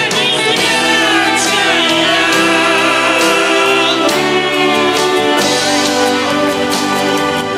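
Slow music with sustained chords and a high, wavering melody line.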